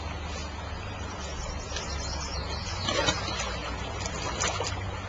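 A flowing stream: a steady wash of running water, with a few faint short clicks, the loudest about three seconds in.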